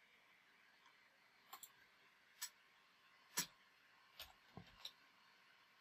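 A handful of short, sharp clicks from a computer mouse and keyboard in use, spaced irregularly over a few seconds, the loudest about three and a half seconds in.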